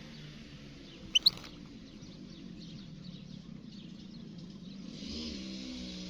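European goldfinch calling: two short, sharp chirps about a second in, then fainter twittering, over a low steady hum.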